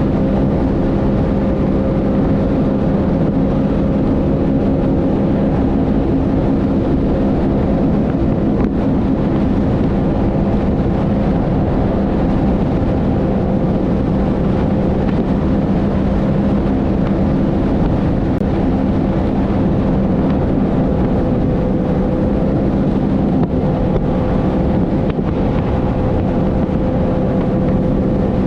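Sea-Doo personal watercraft engine running steadily at an even cruising speed, with a constant engine note and water and wind noise underneath.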